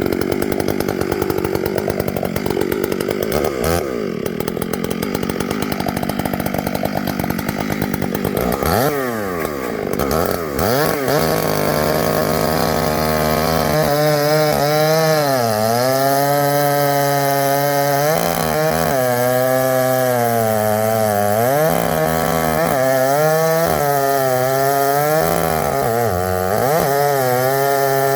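Two-stroke chainsaw cutting into poplar wood. It runs hard and steady for the first several seconds. About nine seconds in, its pitch drops and climbs back. From about halfway on, the engine note sags and recovers every couple of seconds as the chain loads in the cut.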